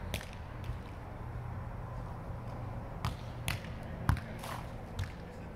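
A volleyball hit several times during a rally on a sand court: sharp slaps of hands and forearms on the ball, the loudest about four seconds in as a player digs it. A steady low hum runs underneath.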